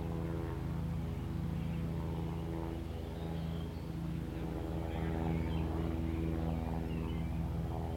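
An engine idling nearby with a low, steady hum that does not change in pitch. Faint short chirps sound higher up over it.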